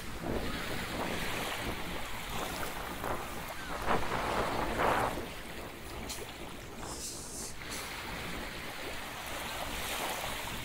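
Waves washing on the shore, with wind buffeting the microphone; the wash swells louder about four seconds in.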